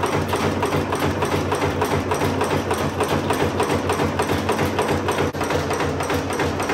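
Automatic wire nail making machine running at speed: a rapid, steady mechanical clatter of several strokes a second over a steady hum. The sound breaks briefly about five seconds in.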